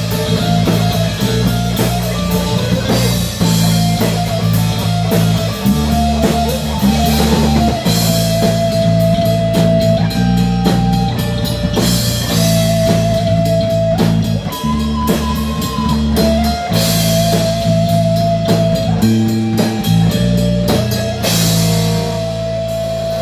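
A live metal band playing an instrumental passage: electric guitars and bass holding low chords that change every couple of seconds, under a melody of long held notes, with drum kit and repeated cymbal crashes.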